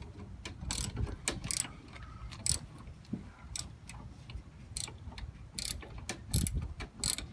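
Socket ratchet clicking in short, irregular runs as a master cylinder mounting nut is backed off.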